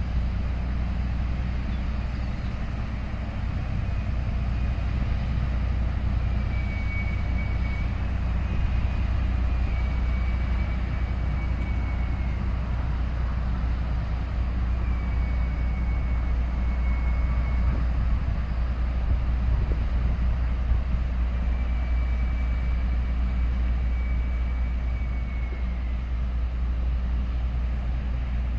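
Steady low rumble of a small container ship's engine as it passes close by, with a few faint, thin, high tones in the middle.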